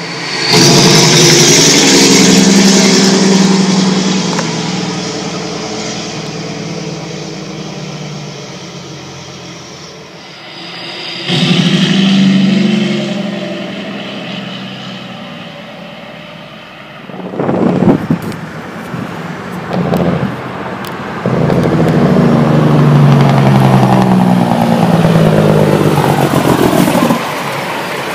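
Diesel semi-trucks' engine compression brakes (Jake brakes) firing as the trucks slow past, in three separate loud bouts of a deep, rapid engine blatting that fades as each truck goes by. A few short sharp clatters come in the middle of the stretch.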